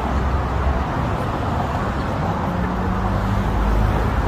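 Road traffic on the bridge roadway: a steady low rumble of passing cars.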